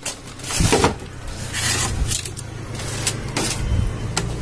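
An empty plastic vegetable crate being handled and tipped, giving several knocks and clatters, over a low steady hum.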